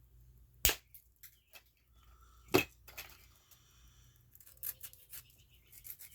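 Two sharp snips of a hand cutting tool shortening a small watch part, about two seconds apart, followed by lighter clicks and faint scraping as the part is handled.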